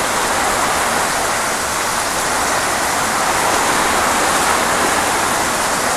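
Very heavy rain pouring down, a loud, steady hiss.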